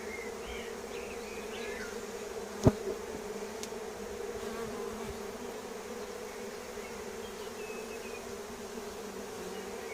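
Honeybees from an opened Langstroth hive buzzing steadily in a continuous hum during an inspection, with one sharp knock about two and a half seconds in.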